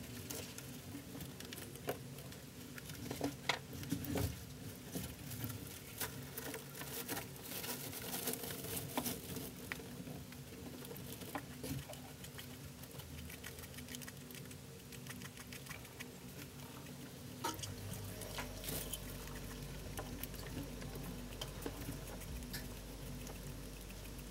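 Pet rat gnawing into a quail egg, the shell cracking and crunching in irregular small clicks and crackles, with hay bedding rustling.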